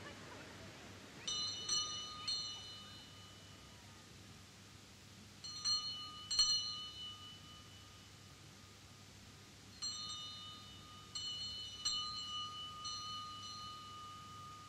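Ice-candy vendor's bicycle bell ringing 'chirin chirin': clear, high rings in small clusters of two or three, every few seconds.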